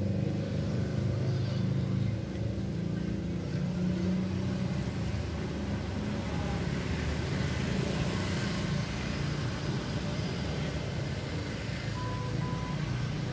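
A motor vehicle engine running nearby as a steady low rumble, strongest in the first few seconds, over road traffic noise. Two short high beeps near the end.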